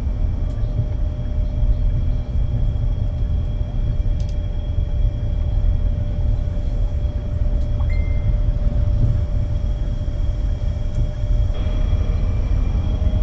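Coach running: a steady low engine and road rumble with a faint steady whine above it.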